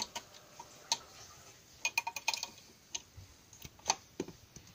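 Irregular sharp plastic clicks and taps from a battery charger loaded with AA batteries being handled. There is a quick run of clicks about two seconds in and a louder single click near the end.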